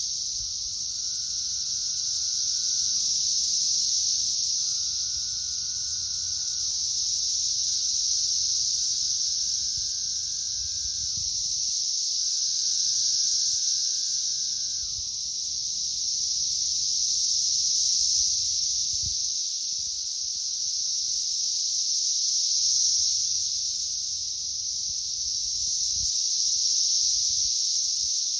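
Dense chorus of periodical cicadas: a steady, loud, high-pitched drone that swells and fades every few seconds. Through the first half, lower drawn-out cicada calls are heard, each sliding down in pitch at its end.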